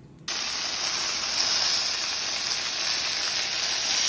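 Food frying in a hot pan: a steady sizzle that starts abruptly a moment in.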